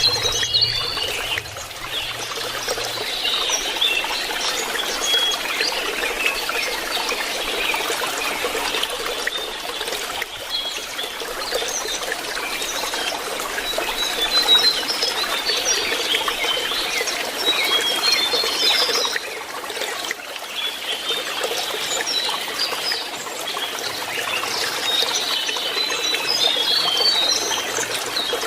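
Lesser shortwing twittering in quick, scattered chirps over a steady background of trickling water.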